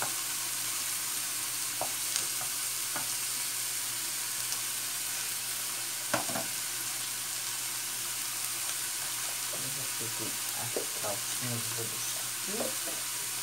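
Diced meat and bacon sizzling steadily as they fry in a pan. A wooden spoon knocks against the pan a few times, loudest about six seconds in.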